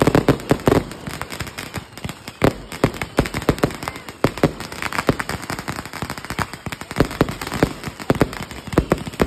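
Aerial fireworks bursting overhead: a dense, irregular string of sharp bangs and pops, several coming in quick succession.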